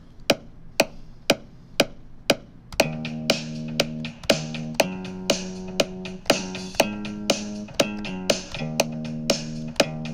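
Metronome count-in clicking twice a second, then a virtual bass guitar instrument starts playing a bass line in real time about three seconds in, with the metronome clicks carrying on under the notes.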